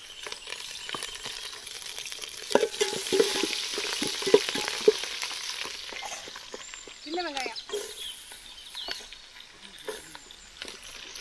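Tempering sizzling in hot oil in a pan (mustard seeds, urad dal, curry leaves and green chillies), stirred with a spoon that knocks against the pan several times a few seconds in.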